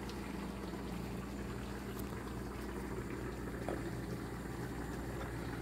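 Pot of rice simmering on the stove: a steady low bubbling hiss with a faint steady hum under it.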